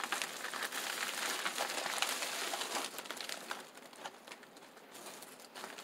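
Plastic padded mailer envelope rustling and crinkling as hands open it and slide the contents out. The rustling is steadiest over the first three seconds or so, then turns faint and sparse.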